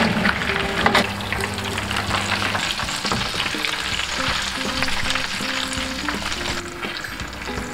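Fresh-roasted porchetta sizzling in hot fat in its roasting tray, fading a little near the end, with two knocks in the first second. Background music with held notes plays under it.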